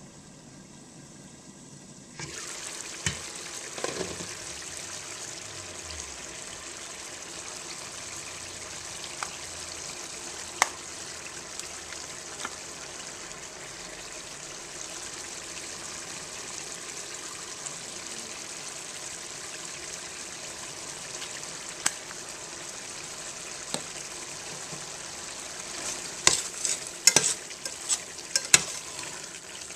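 Beef and chorizo sizzling in a stainless steel pan, the sizzle jumping suddenly louder about two seconds in as the pan is uncovered. A spoon scrapes and knocks against the pan now and then, more busily near the end as the meat is stirred.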